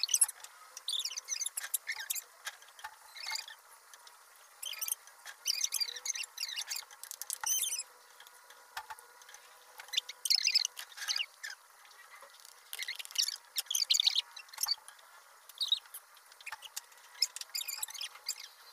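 Close crunching of homemade potato chips being chewed, in irregular bursts of crackling every second or two.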